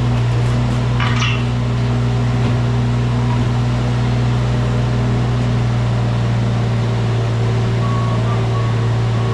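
Mini excavator's diesel engine running steadily under work, a constant low hum, with a brief scraping hiss about a second in.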